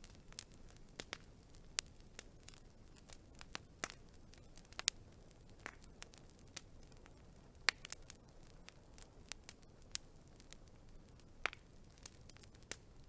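Wood fire crackling: irregular sharp pops and snaps over a faint low hiss, with a few louder pops about five and eight seconds in.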